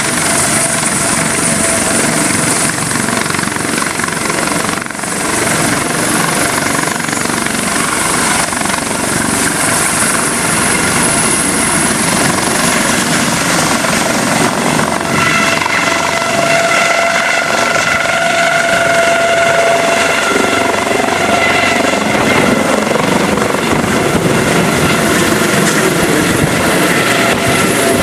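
Eurocopter AS365 Dauphin air ambulance helicopter running at flying power as it lifts off and climbs away overhead: loud, steady turbine whine and rotor noise. Several steady whining tones grow stronger about halfway through as it leaves the ground.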